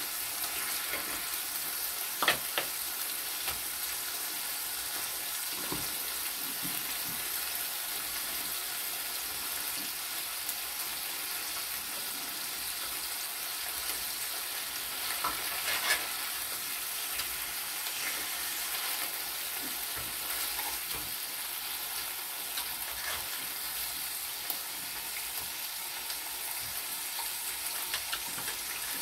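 Pork belly sizzling on a round grill pan over a portable gas burner: a steady, spitting hiss of frying fat. A few sharp clicks of tongs and scissors against the pan stand out, the loudest about two seconds in and about halfway through.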